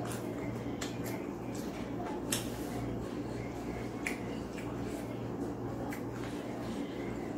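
Eating sounds from a person eating fried tempe by hand: chewing, with scattered short, sharp wet clicks, the loudest about two seconds in. A steady low hum runs underneath.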